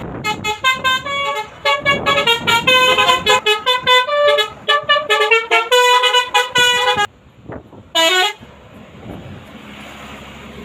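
Bus 'telolet' Basuri multi-tone horn playing a fast melody of short, changing notes for about seven seconds. It stops abruptly, and a single short horn note with a bending pitch follows about a second later.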